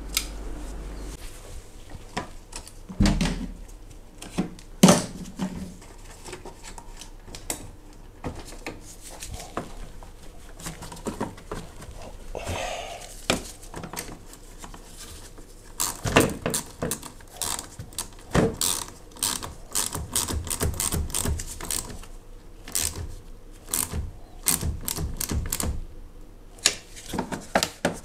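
Metal hand tools clicking and knocking as a wrench loosens and tightens a car battery's terminal clamp to reconnect the battery, with a few louder knocks early on and a run of quick clicks in the second half.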